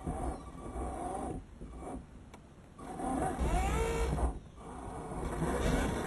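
Motor and gears of a 1:10-scale RC off-road truck whining, rising and falling in pitch as the throttle comes on and off over rough dirt. It drops away briefly about half a second in, again around two to three seconds in, and once more near four and a half seconds.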